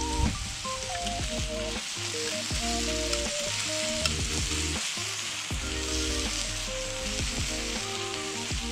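Sliced meat and vegetables sizzling steadily on an iron griddle as they are stirred and turned with tongs, over light background music.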